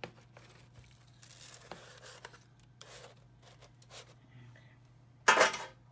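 Kitchen tongs flipping raw steaks in an enamel roasting pan: soft scrapes and light clicks of the tongs against the pan and meat, with one short, louder rush of noise near the end.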